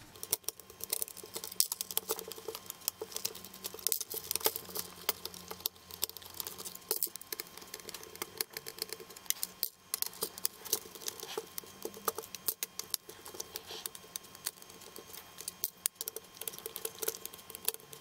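Screwdriver backing small screws out of a microwave's control-panel circuit board in its plastic housing: a run of light clicks and scratches.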